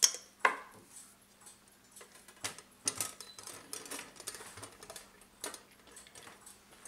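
A battery snapped into the battery holder of a small quartz pendulum motor with two sharp clicks, then light knocks and clicks as the brass clock case is handled and set down on the bench.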